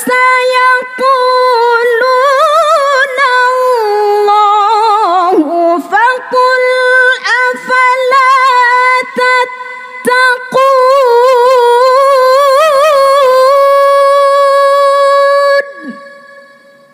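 A woman reciting the Quran unaccompanied in the melodic tilawah style, drawing out long ornamented phrases with wavering pitch and quick melodic turns. Near the end she holds one long steady note for about five seconds, which then cuts off and fades away in echo.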